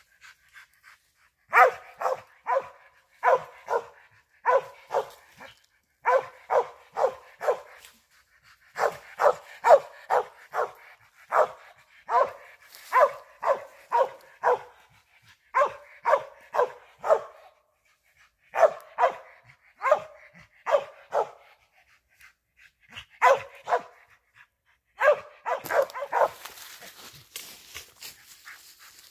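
Squirrel dog barking treed, in quick runs of three to six barks with short pauses between, signalling a squirrel up the tree.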